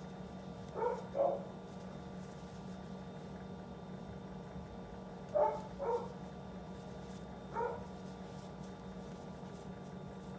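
A dog barking five times in short barks: a pair about a second in, another pair past the middle, and a single bark near the end.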